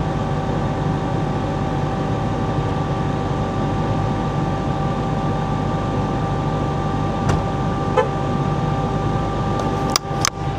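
Dodge Charger Hellcat's supercharged 6.2-litre Hemi V8 idling steadily, with a constant whine and the radiator cooling fans running because the engine is running a little hot. A few short clicks come near the end.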